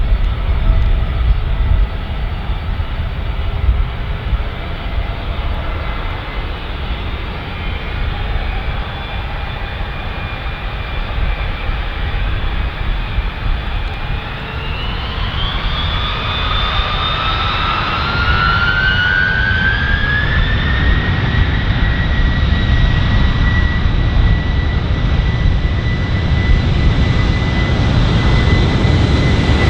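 Aircraft turbine engines running over a steady low rumble. About halfway through, their whine rises in pitch over several seconds and then holds steady, as the engines spool up.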